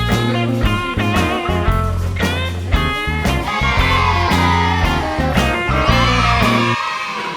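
Background rock music with guitar over a steady bass line. From about halfway a long, slowly falling guitar line comes in, and the bass drops out near the end.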